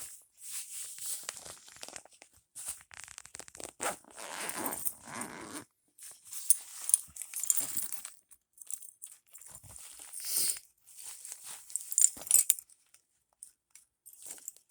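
Gear being handled: the rustle and crinkle of a fire-kit pouch and its contents, in irregular bursts with a few sharp clicks between short pauses.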